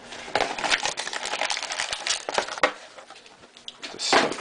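Packaging of a trading-card hobby box crackling and crinkling as it is handled and opened, a dense run of close clicks and rustles, quieter for a moment, then a loud burst of crackling about four seconds in.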